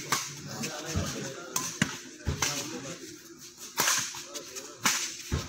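Badminton rackets striking a shuttlecock in a doubles rally: a string of sharp, irregularly spaced smacks, about eight in five seconds.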